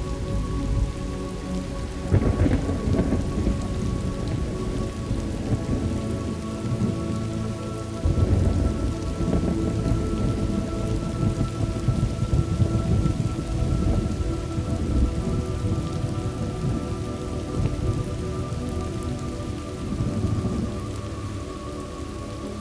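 Thunderstorm ambience: steady rain with rolling thunder, one rumble breaking about two seconds in and another about eight seconds in.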